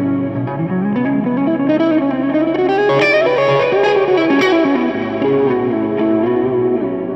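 Solo electric guitar, a Les Paul-style solid-body played through a combo amp: an improvised melodic run climbs over about two seconds, then steps back down, over ringing chord notes.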